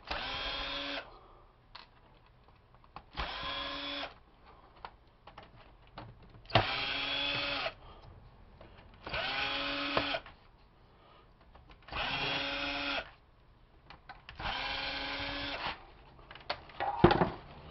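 Power screwdriver backing screws out of a plastic computer keyboard case in about six short runs of roughly a second each. Each run spins up quickly to a steady whine, with small clicks and rattles of handling between the runs.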